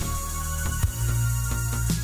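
Electronic background music with a steady beat and deep bass notes.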